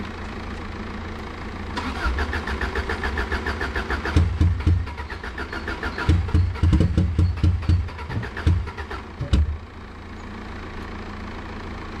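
Subaru Impreza's flat-four engine cranked on the starter from about two seconds in, then catching and running roughly in uneven, stumbling beats before dying about nine and a half seconds in: a heavy misfire.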